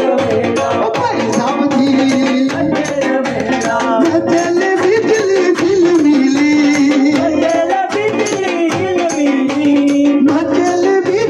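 Folk music with a steady percussion beat and a shaker-like rattle under a wavering melody line.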